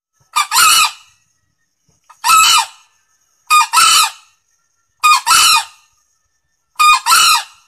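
Male green junglefowl crowing loudly: five short two-part calls, each a brief first note followed by a longer second one, about one every second and a half.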